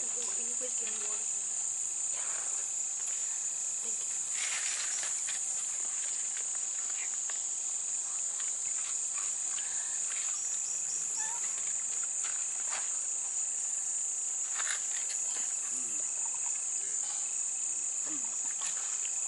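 Steady, high-pitched insect chorus, one unbroken drone, with scattered faint clicks and rustles.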